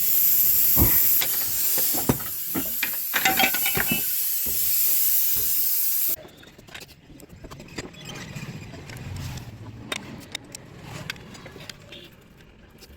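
A loud steady hiss with sharp clicks and knocks over it, which cuts off abruptly about six seconds in, followed by a quieter run of scattered metal clicks and knocks from hand work on the motorcycle.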